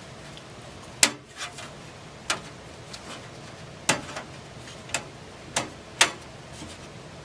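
Sharp metallic clicks and taps, about seven at irregular spacing, as a stamped metal motherboard I/O shield is handled and pressed into the case's rear opening. The loudest clicks come about a second in and near the end.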